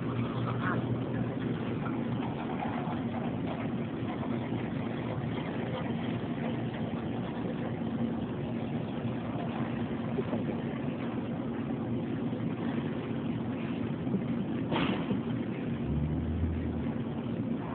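Steady machine hum of grocery-store equipment, such as the lobster tank's pump and chiller, with a single sharp click near the end.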